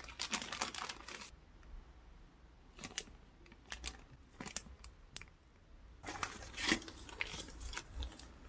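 Clear plastic zip-lock bags crinkling and rustling as they are handled. There is dense crinkling about the first second and again from about six seconds in, with scattered sharp clicks and crackles between.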